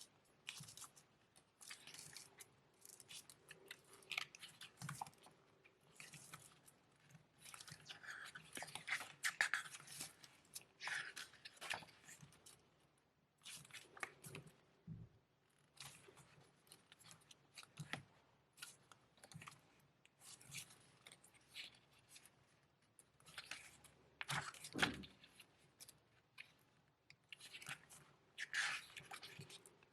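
Album packaging being handled by hand: irregular rustling, crinkling and small clicks of paper, card and plastic, with a few louder crinkly stretches.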